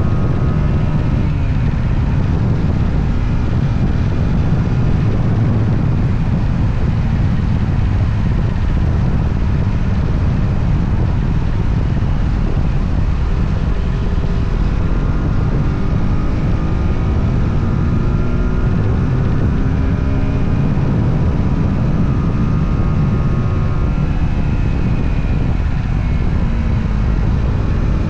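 Motorcycle engine running under way, its note rising and falling slowly with the throttle, over a heavy low rumble of riding noise.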